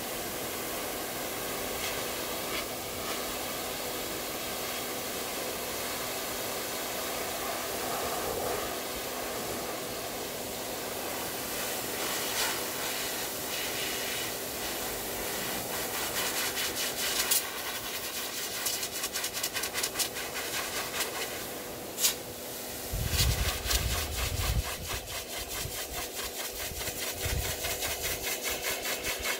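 Canister-style high-velocity dog grooming dryer blowing steadily, its airstream hissing over a Great Pyrenees's thick coat with a constant hum. From about halfway the air flutters rapidly, with a few low thuds near the end.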